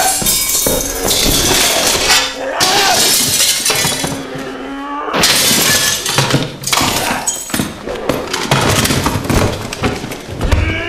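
Glass and objects smashing and clattering in a series of crashes, with a person's voice crying out now and then.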